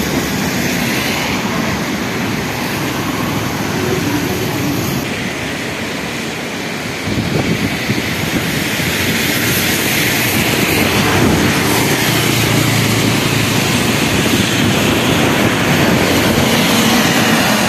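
Steady, loud rushing noise of road traffic on a bridge mixed with the rush of a river in full flood, swelling a little louder from about seven seconds in.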